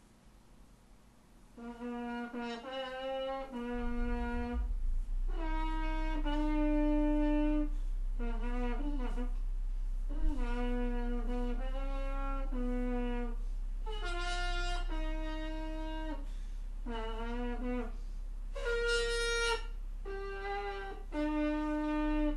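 Trumpet playing a slow tune of held notes, starting about a second and a half in, with a couple of notes jumping higher near the end.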